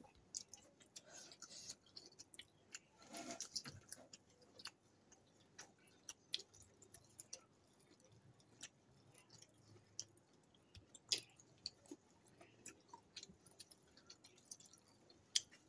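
Faint chewing and mouth sounds of people eating rice and greens by hand, with scattered small clicks and long near-quiet gaps.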